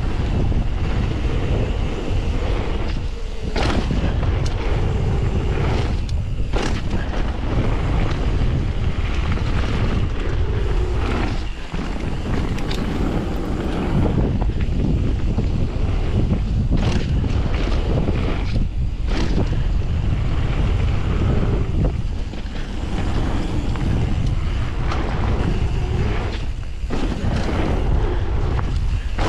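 Wind rushing over the microphone of a mountain bike at speed on a dirt and gravel trail, with the tyres rolling and the bike rattling over the rough ground. A few sharp knocks stand out, about three and six seconds in and again near twelve, seventeen and nineteen seconds.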